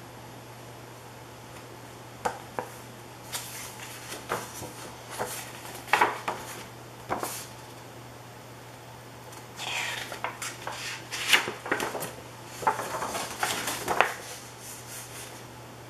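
Scattered light metallic clicks and rattles, dense between about ten and fifteen seconds in, over a steady low hum.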